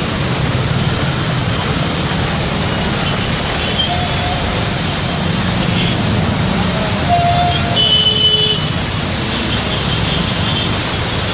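Large fountain's water cascading over the basin rim and splashing steadily into the pool, with street traffic behind it.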